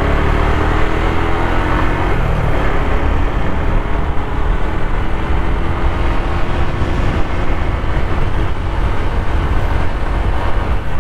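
Suzuki Gixxer's single-cylinder engine pulling under acceleration, its pitch rising over the first couple of seconds, then running steadily under a heavy rush of wind and road noise.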